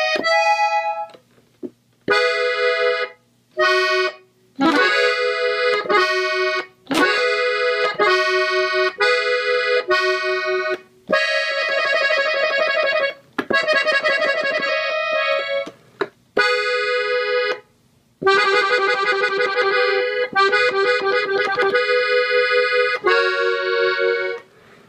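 Gabbanelli button accordion, pitched in E, playing a melody slowly in B major. Held notes and chords come in short phrases broken by brief pauses, with longer sustained passages in the second half.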